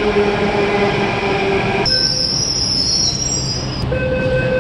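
Delhi Metro train arriving at an underground platform: a steady rumble with a whining squeal from the wheels and brakes. About two seconds in the sound changes abruptly, and near the end a steady electric whine of several tones sets in over the rumble.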